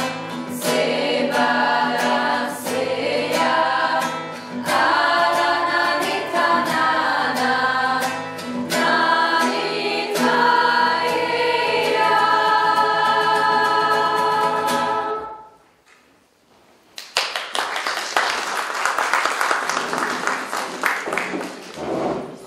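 Mixed youth choir singing with acoustic guitar strumming, ending on a held chord about fifteen seconds in. After a short pause, the audience applauds.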